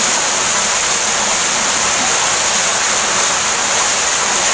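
Waterfall pouring down a rock face into a shallow plunge pool: a loud, steady rush of falling water.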